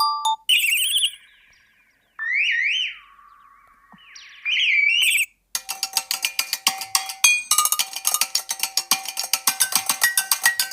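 Google Pixel 9 ringtones previewed one after another, each cut short: a warbling electronic tone, then gliding rising-and-falling synth sweeps, then from about halfway a fast ticking rhythm with repeating tones.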